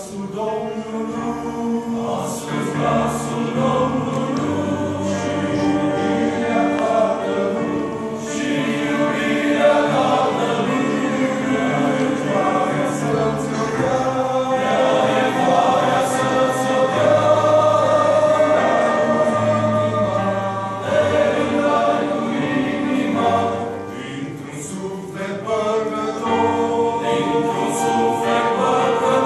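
A mixed church choir of men and women singing a hymn in harmony.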